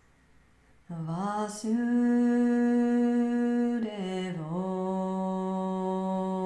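A woman's solo, unaccompanied Sanskrit devotional chant. About a second in she slides up into a long held note, breaks off near four seconds, and then holds a second, slightly lower note.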